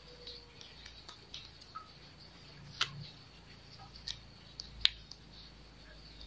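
Faint small clicks and taps of a split bamboo arrow shaft and thin plastic fletching vanes being handled and fitted together, with two sharper clicks about three and five seconds in.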